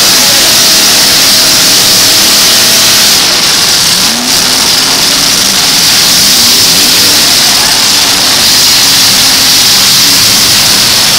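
Engines of several demolition derby trucks running and revving together, pitch rising and falling a few times, over a steady loud hiss of noise.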